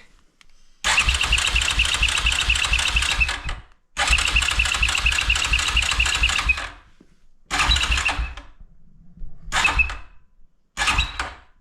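Yamaha Kodiak 450's electric starter cranking the engine without it catching: two long cranks of about two and a half seconds, then three short blips, each with a rhythmic chug of compression strokes over the starter's whine. The quad won't start, and a fuel problem in the carburettor is suspected.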